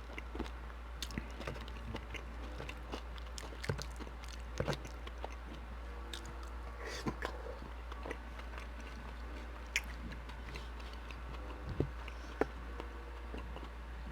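Close-miked chewing and biting of poutine, irregular wet mouth clicks and smacks, over a steady low hum.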